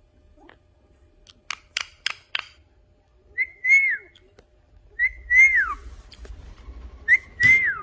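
A parrot whistling the same short phrase three times, each a brief note followed by one that rises a little and falls away. It is preceded by four quick, sharp chirps.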